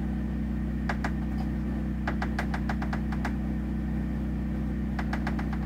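Quick runs of light, sharp clicks and taps from hand-loading a 12-gauge shotgun shell: a couple about a second in, about ten in quick succession a second later, and several more near the end. A steady low hum runs underneath.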